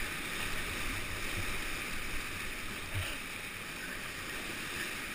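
Churning whitewater at the foot of a man-made weir, a steady rushing noise, with a dull knock about three seconds in.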